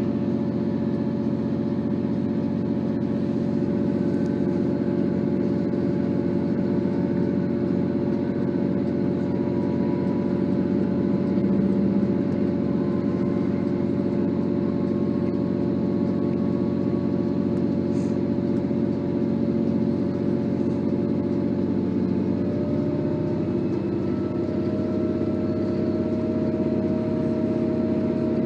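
Diesel train engine running steadily: a low drone with several held tones that drift slowly in pitch.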